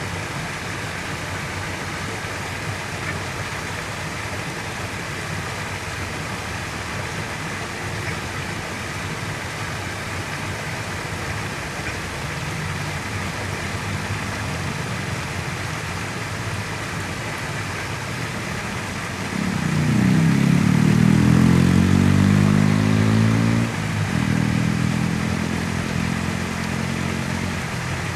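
Steady hum of road traffic; about twenty seconds in, a motor vehicle's engine grows loud as it accelerates, its pitch rising, then drops off for a moment and runs on before fading.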